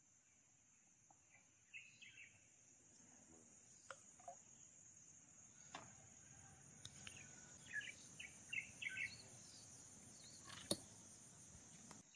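Quiet pond-side ambience: a steady high-pitched insect drone with a run of short bird chirps in the second half. A few faint ticks, the sharpest one near the end.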